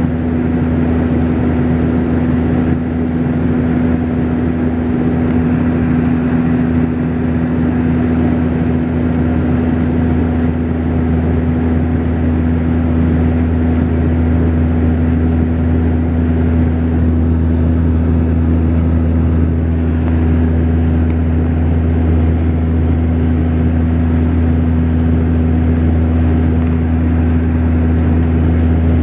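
Steady, loud drone of a Saab 340B's twin turboprop engines and propellers heard inside the cabin, a deep even hum with a strong steady tone above it, unchanging throughout.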